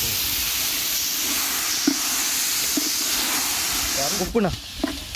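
Steady sizzling hiss of tomato, chilies, garlic and turmeric frying in oil in a large pot of rasam.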